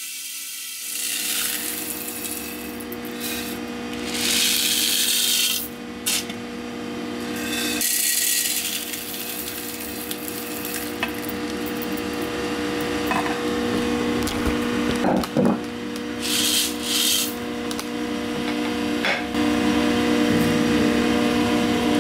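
Roasted coffee beans rasping and rustling in dry, scraping surges over a steady motor hum, with louder rushes about four seconds in and again near sixteen seconds.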